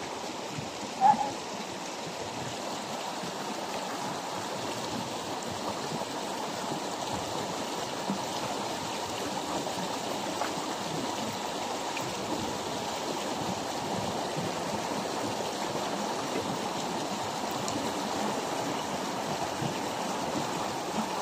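Shallow stream rushing and babbling steadily over rocks. A short vocal sound comes about a second in.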